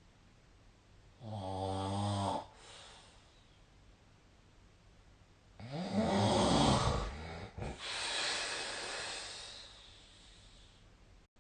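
A sleeping person snoring: two snores about four seconds apart, each a low, buzzing, pitched sound. The second snore is louder and longer and runs straight into a long, breathy exhale.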